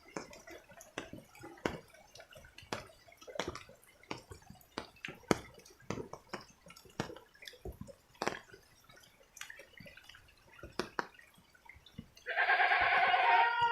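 Rainwater dripping irregularly in scattered single drops after heavy rain. Near the end comes one long pitched call lasting about a second and a half.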